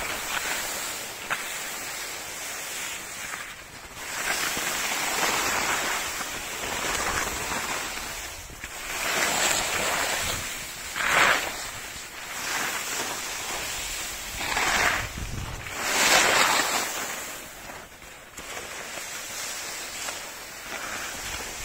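Edges scraping and hissing as they side-slip across thin, lumpy early-season snow, with wind on the microphone. The scrape swells into louder surges several times.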